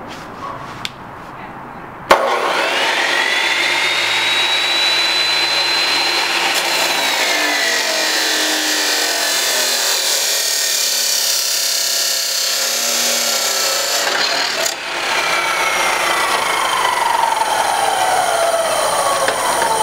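Abrasive chop saw cutting steel tubing. Its motor starts about two seconds in with a rising whine, then the wheel grinds through the steel while the whine sinks in pitch. There is a brief drop near three-quarters of the way through, and then the grinding starts again with the whine falling once more.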